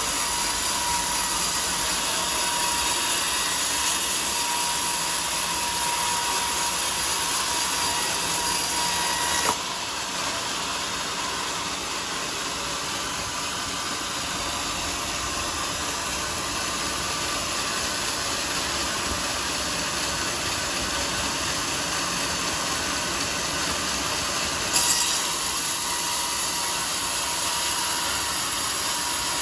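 Sawmill saw running through a teak log, a steady mechanical noise with a faint tone that drops out abruptly about a third of the way in, and a brief louder jolt near the end.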